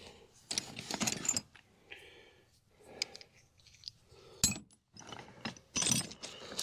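Metal hand tools being handled and tried on a bolt to find its size: clinking and rattling in a few short bursts, with one sharp click about four and a half seconds in.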